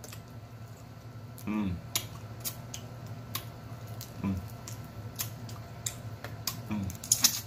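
Snow crab leg shells cracking and snapping as they are broken apart by hand, a series of sharp separate cracks, with wet mouth sounds of sucking the meat from the shell and three short hums of enjoyment.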